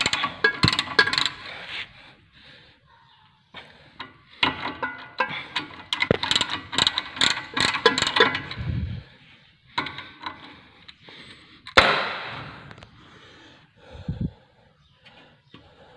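Ratchet wrench clicking in bursts, about three clicks a second, as a bolt on a car's front suspension is turned. There is one sharp metallic clang near the end.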